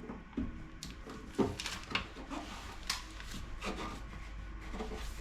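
Toilet cistern parts being handled and tightened by hand during a flush valve fitting: a string of light knocks and clicks with rubbing scrapes between them.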